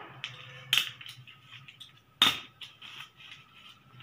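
A hand stapler punching staples through the edge of thick layered paper: two sharp clacks about a second and a half apart, the second the loudest, among smaller ticks and paper handling.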